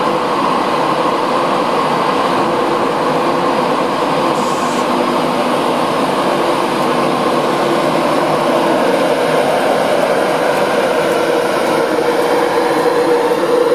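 InterCity 225 Class 91 electric locomotive pulling slowly out of the platform: a loud, steady hum and drone of its electric traction equipment, with the drone growing a little stronger near the end as the coaches start to roll past.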